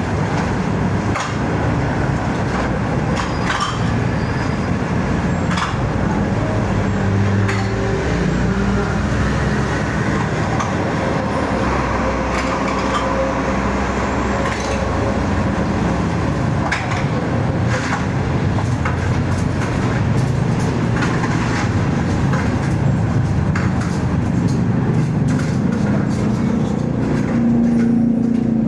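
A motor vehicle running, with a low engine hum that shifts in pitch and scattered rattles and knocks over steady road noise.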